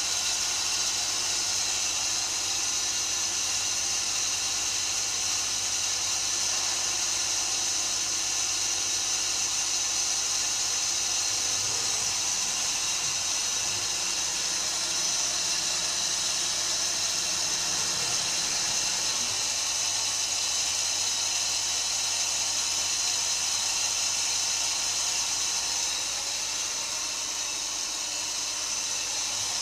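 Maier & Co ML 26DY Swiss-type CNC lathe running: a steady mechanical hiss with several high, steady whining tones. Lower tones shift for a few seconds in the middle, and the sound eases off a little near the end.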